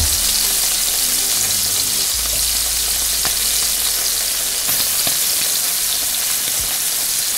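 Slabs of queso de freír (Dominican frying cheese) sizzling steadily in hot oil in a skillet, with a few small pops from the moisture in the cheese hitting the oil.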